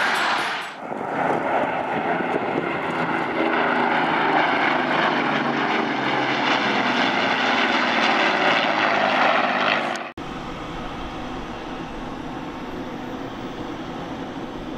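Loud jet aircraft roar that stops abruptly about ten seconds in. It gives way to the quieter, steady drone of an Airbus A330's engines on final approach, with a low rumble underneath.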